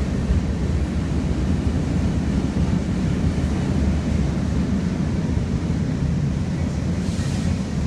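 Freight train cars rolling past at close range, a steady low rumble of steel wheels on rail.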